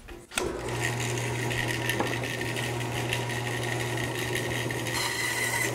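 Woodworking bandsaw switched on about half a second in, then running steadily with a constant motor hum.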